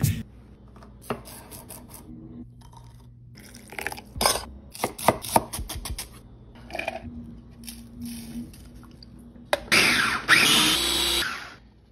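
A knife slicing ramp stems on a wooden cutting board, a scattered series of sharp taps. Near the end a food processor runs for about a second and a half, blending the ramp chimichurri, then stops abruptly.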